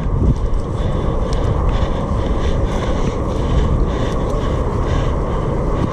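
Wind buffeting the microphone: a steady, loud rumbling noise, with a few faint scattered clicks.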